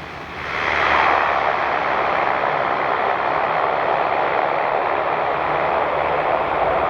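Cessna 208EX Grand Caravan EX's single turboprop engine and propeller, which get sharply louder about half a second in and then hold a steady rushing noise.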